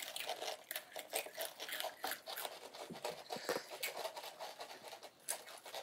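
Faint, irregular crunching of crunchy snack chips being chewed, with light rustling and clicks from the chips being handled.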